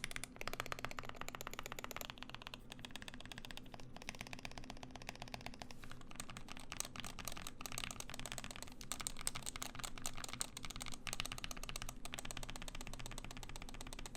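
Ikki68 Aurora mechanical keyboard being typed on fast and continuously, a dense run of key clacks.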